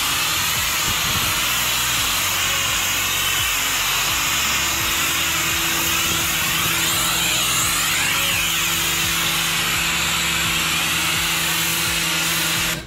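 Pressure washer spraying water onto a foam-covered car: a loud, steady hiss of the jet, with the machine's motor humming underneath.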